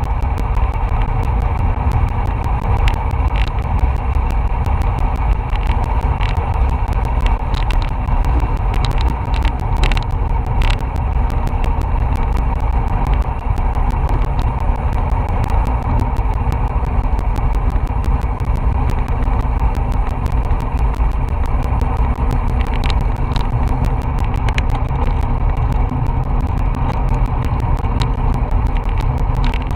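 Steady wind rush over an action camera's microphone on a bicycle moving at about 23 mph, mixed with road noise and scattered small clicks.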